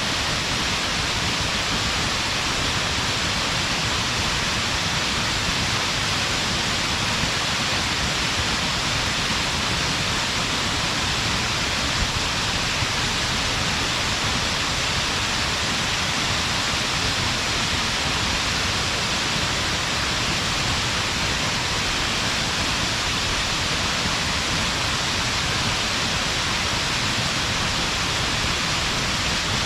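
Waterfall splashing down, a steady, unbroken rushing of falling water.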